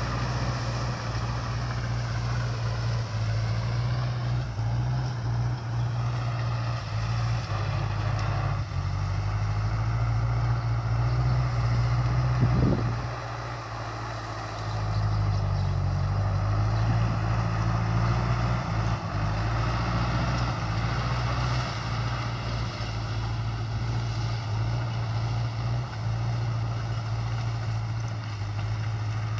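A diesel tractor engine runs steadily under load while pulling a rotary implement through dry corn stalks. A little past the middle there is one short knock, then the sound falls off for a couple of seconds before coming back.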